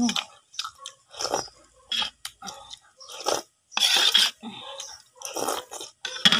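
A person eating noodles close up: a string of short, wet slurps and chewing sounds, roughly one every half second to a second.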